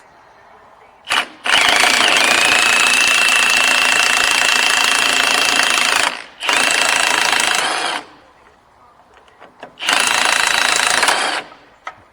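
Impact wrench hammering in four bursts, a short blip, then a long run of about four and a half seconds and two shorter runs, with a steady high whine through the long one, working at a stubborn suspension nut that is not wanting to come off.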